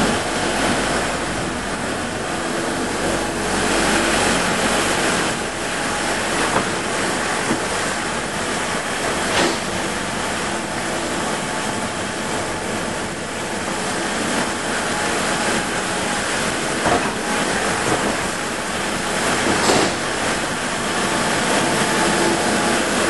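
Land Rover Discovery driving slowly through the enclosed metal wagons of a car-carrying shuttle train: steady engine and tyre noise, with a few short clunks scattered through.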